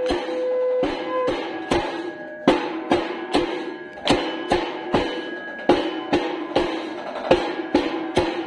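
Temple bells ringing together with a drum, struck in a steady rhythm of about two or three strokes a second, the bell tones hanging on between strokes: the bell and drum accompaniment of a Hindu aarti lamp offering.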